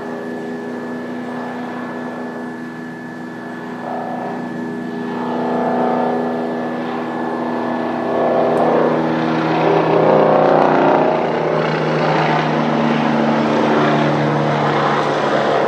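Helicopter flying low overhead: a steady drone of engine and rotor with several held tones, growing louder from about four seconds in and loudest around the middle, its tones shifting slightly in pitch as it passes.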